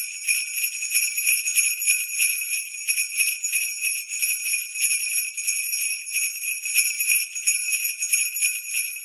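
Jingle bells shaken continuously in a quick, even rhythm, a bright, high jingling with nothing lower beneath it.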